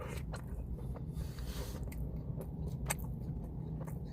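A person chewing and biting into sesame chicken, with faint mouth clicks, over a steady low hum inside a car.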